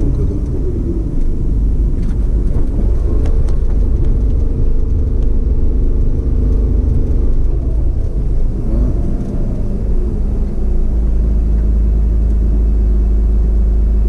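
Low, continuous rumble of a car's engine and tyres while driving. The sound settles into a steady, even drone about ten seconds in.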